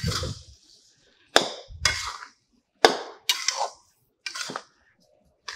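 Metal spatula clanking and scraping against a metal kadhai while sugar is stirred into thick semolina halwa: about six sharp knocks, a second or so apart, each with a short ring.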